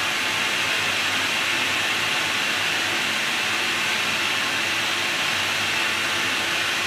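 Compressed air hissing loudly and steadily through the Russell snow plow's flanger air control valve as the valve is worked to lower the flanger, drawing down the plow's air pressure.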